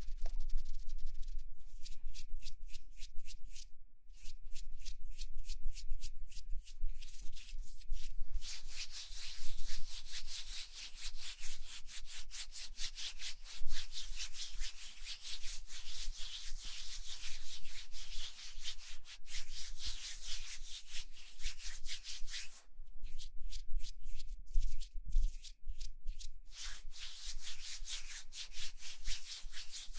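Quick, repeated scratchy rubbing strokes close to the microphone, an ASMR trigger sound.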